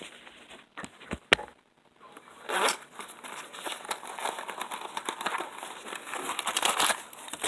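A container being opened by hand: a few sharp clicks about a second in, then steady crinkly rustling and small clicks as it is worked open.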